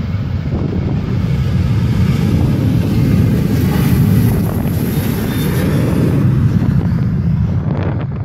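Boeing 737-800's CFM56-7B turbofan engines at takeoff thrust during the takeoff roll, a loud roar that swells as the jet passes, loudest around four to six seconds in, then eases as it moves away.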